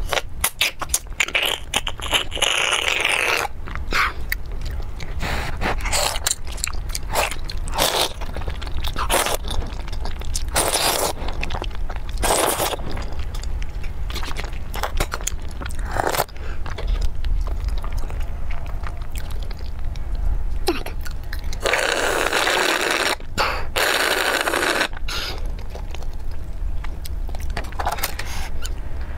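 Soup being sucked out of a soup dumpling through a drinking straw, close to the microphone: many short slurps, with two longer draws, one about two seconds in and one about twenty-two seconds in.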